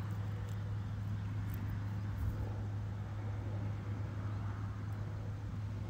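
A steady low hum over a faint background hiss, unchanging throughout.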